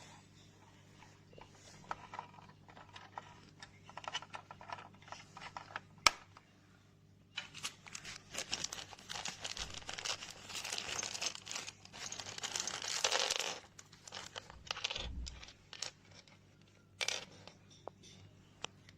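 Plastic packaging crinkling and rustling as it is handled, loudest in the middle, with scattered light clicks and one sharp click about six seconds in, over a faint steady low hum.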